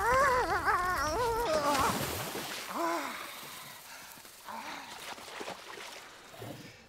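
An animal's wavering, wailing cry that breaks off about two seconds in, then one short falling call, with quieter scattered sounds fading away after it.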